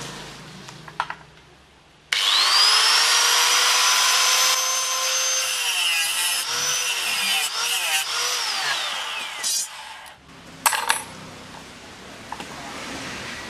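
Electric angle grinder starting about two seconds in, its whine rising to speed and then dipping and wavering as the disc cuts into a metal bicycle rear derailleur part. The motor is switched off near ten seconds in and winds down with a falling whine, followed by a couple of sharp knocks.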